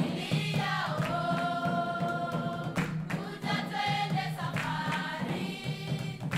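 Background music of choral singing, with long held notes that change every second or two.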